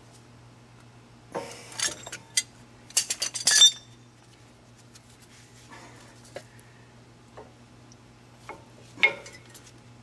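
Metal clinking and rattling as a brake caliper is handled and worked over new front brake pads on a 2014 Ram 1500: a cluster of clatters between about one and four seconds in, and a single clink about nine seconds in.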